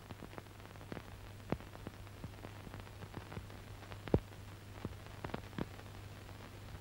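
Background noise of an old film soundtrack: a steady low hum with scattered, irregular clicks and crackles, the loudest a little after four seconds in.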